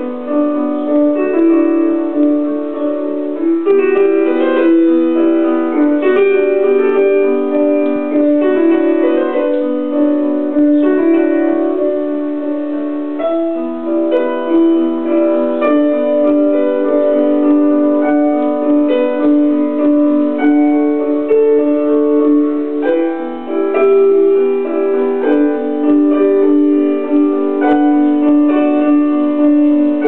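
Piano music: a steady flow of overlapping mid-register notes.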